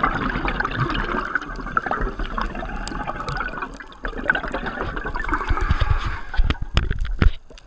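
A scuba diver's exhaled bubbles gurgling past an underwater camera, in two long breaths with a short gap about four seconds in. A run of low knocks follows near the end.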